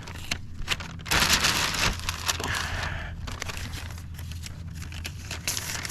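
Masking sheet crinkling and rustling as it is handled and taped down against the trim, loudest for a couple of seconds about a second in.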